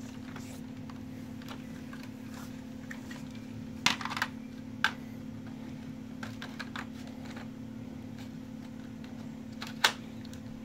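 Plastic clicks and clatter of Nerf toy blasters and their parts being handled, with a few sharp snaps, the loudest about four seconds in and again near the end, over a steady low hum.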